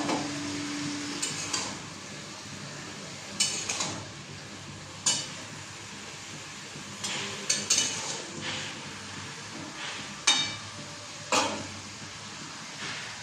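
Steel cooking utensils clinking against steel pots and bowls, about ten sharp ringing clinks at uneven intervals, over a steady hiss of cooking on the stove.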